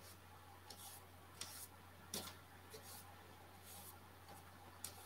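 Faint, short strokes of a paintbrush on a painted board, about six of them, over a steady low electrical hum.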